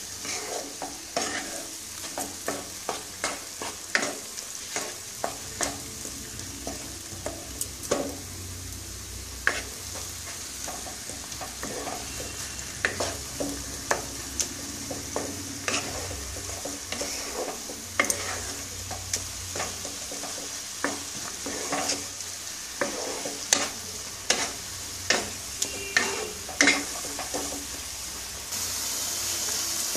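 Raw beetroot paste frying in mustard oil in a non-stick pan: a steady sizzle while a wooden spatula stirs and scrapes it, with frequent irregular clicks of the spatula on the pan. The sizzle grows louder near the end.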